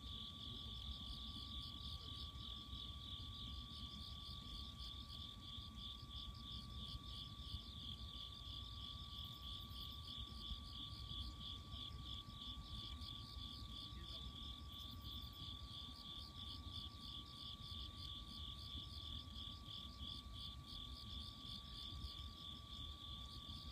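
Insects chirping in a steady, rapid, evenly repeating pulse, with a faint steady high tone and a low rumble underneath.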